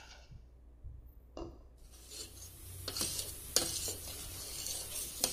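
Steel spoon stirring and scraping in a steel pot of simmering milk, starting about two seconds in, with a few sharp clinks of the spoon against the pot over a low hiss from the milk. This is the rabdi stage where the rising cream is scraped onto the pot's sides.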